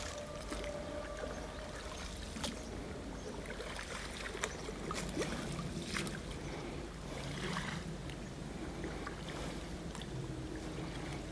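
Oars of an inflatable rowing dinghy dipping and splashing in calm water, faint, with scattered light clicks and knocks.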